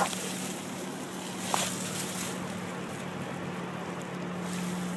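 Steady rush of flowing river water close to the microphone, over a low steady hum, with one short knock about one and a half seconds in.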